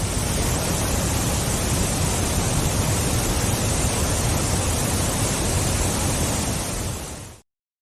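Waterfall: a steady rush of falling water with a deep rumble underneath. It fades out near the end.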